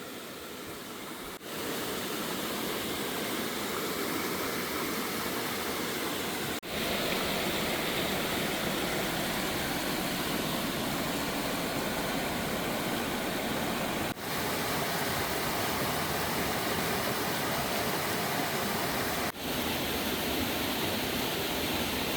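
Rushing water of a clear mountain stream: a steady, even rush with no tones, briefly dropping at a few splices between shots.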